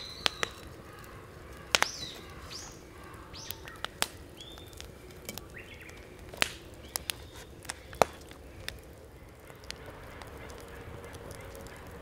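Bonfire crackling, with sharp pops about a dozen times, loudest near 2, 6.5 and 8 seconds in. Short high animal calls chirp in the background between pops, and a faint steady trill of insects or frogs comes up near the end.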